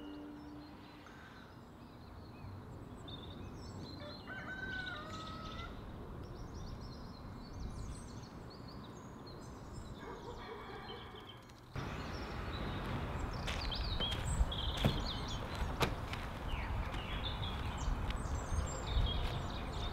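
Outdoor ambience with birds calling and chirping in short scattered calls. About twelve seconds in the background jumps louder, with a low rumble and a few sharp clicks.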